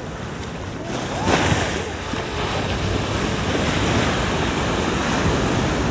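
Sea waves breaking and washing in the shallows, a steady rushing surf with a louder surge about a second in.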